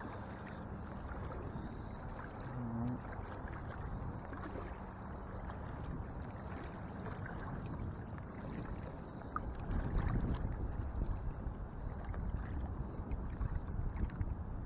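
Shallow saltwater sloshing and swishing around a person's legs as they wade slowly in. The sloshing gets louder about ten seconds in.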